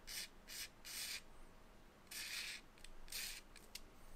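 A stick of charcoal scratching across drawing paper in about five or six short strokes, with pauses between them, as lines are drawn.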